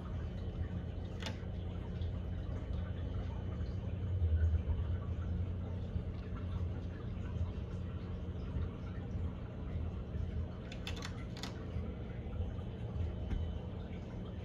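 Aquarium pump and circulating water: a steady low hum with water trickling and bubbling, and a few light clicks about a second in and around eleven seconds.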